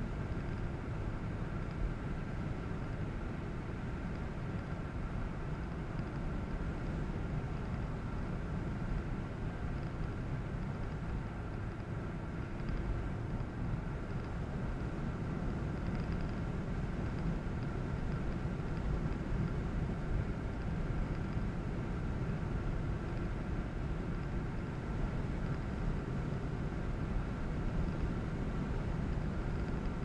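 Car driving steadily along a paved highway: an even low rumble of tyres and engine, with a faint steady high hum over it.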